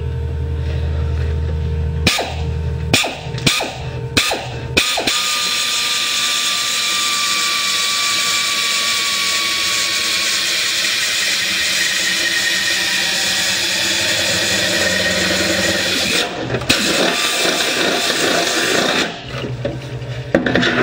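Pneumatic air drill boring through the mower's red body panel. A few short bursts come first, then a long steady run with a faint whine that slowly drops in pitch. It stops and starts again twice near the end. The drilled hole rounds off the end of a cut to come, so the panel won't crack there.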